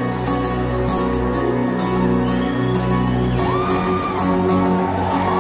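A live band plays the instrumental intro of a ballad: acoustic guitars over sustained bass notes, with a steady beat, heard from the audience in a large hall. A whistle or shout rises from the crowd about three and a half seconds in, and crowd cheering swells near the end.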